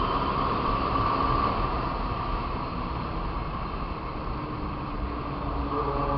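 Motorcycle engine running at a steady speed while riding, over a steady rush of road noise, a little quieter around the middle.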